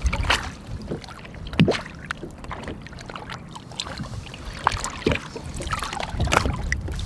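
Lake water splashing and sloshing around a hand and a largemouth bass as the fish is lowered into the water and released. It comes as a few scattered splashes.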